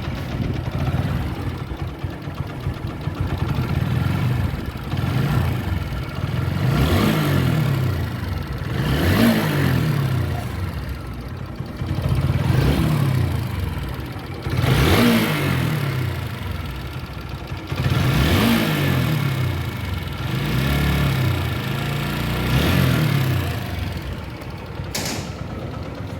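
TVS Apache RTR 4V's single-cylinder engine revved repeatedly, its pitch rising and falling every two to three seconds between blips. The owner presents this as an abnormal, bad engine noise.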